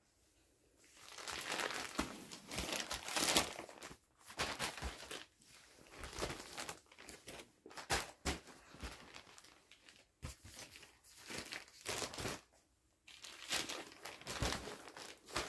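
Plastic-wrapped packs of adult diapers crinkling and rustling as they are handled and stacked, in irregular bursts with short pauses and a few thumps as packs are set down.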